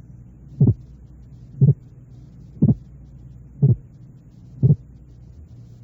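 Simulated heart sounds, each beat made of two 30-millisecond sounds heard as a split, close-spaced double thump. About one beat a second, five in all, over a faint steady hum. The two halves are about six hundredths of a second apart, a clearly audible split of the heart sounds.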